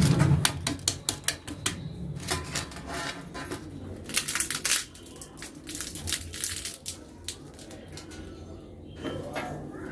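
Crispy baked flaky pastry of a chicken patty crunching and crackling in irregular bursts of sharp snaps as it is broken or bitten into, with a low thud at the start.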